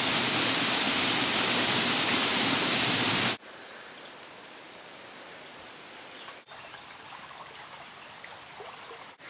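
Loud, steady rush of flowing water, like a stream or small waterfall, that cuts off abruptly about three seconds in. After it comes a much quieter outdoor background with a few faint high chirps.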